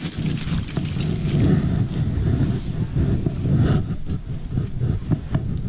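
Wind buffeting the camera microphone: a loud, gusting low rumble. A few light clicks and rustles are scattered through it.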